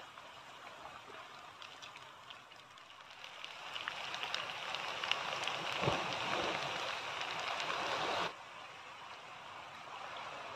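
Chopped onions frying in oil in a frying pan, sizzling. The sizzle grows louder about four seconds in, with a few light ticks, and drops off sharply after about eight seconds.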